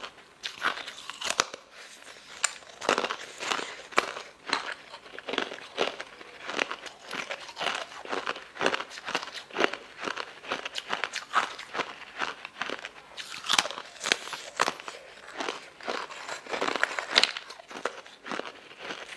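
Thin lotus root slices being bitten and chewed close to the microphone: a run of sharp, irregular crunches, several a second, with louder clusters of crunching a little past the middle and near the end.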